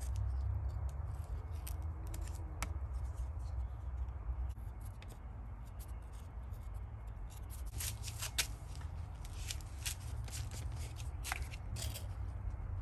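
Short, irregular scraping and snipping strokes of a blade cutting and stripping bark from a small tree branch to prepare an air layer. The strokes come closer together in the last few seconds, over a steady low rumble.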